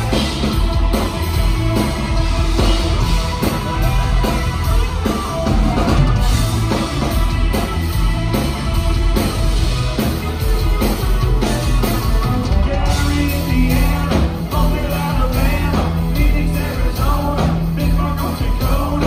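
Live band music, loud and steady, with drum kit and bass; a singing voice is heard at times.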